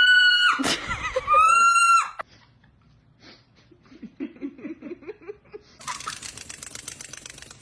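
A parrot giving two loud, long, high-pitched calls, each held on one pitch, in the first two seconds, then quieter choppy laugh-like sounds and a harsh rasp near the end.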